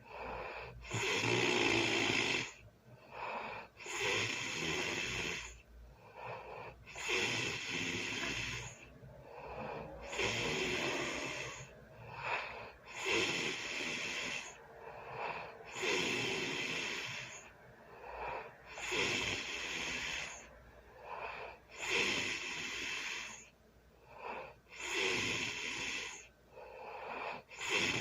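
A person snoring in a regular rhythm, one snore about every three seconds, each lasting a second and a half to two seconds, with quieter breaths in between.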